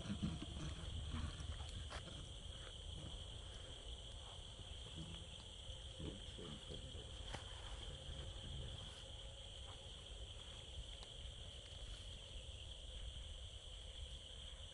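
Insects droning steadily on one high pitch, over a low rumble with a few faint ticks and rustles.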